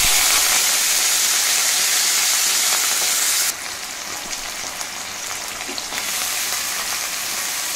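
Cut potato, okra and bottle-gourd peel dropped into hot oil in a kadai, sizzling loudly as they hit the oil. About three and a half seconds in the sizzle drops sharply to a steadier, quieter frying.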